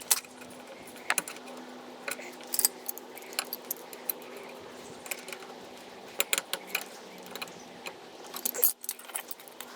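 Scattered light metallic clicks and clinks of steel side cutters working a brake spring and parking brake cable on a drum brake shoe.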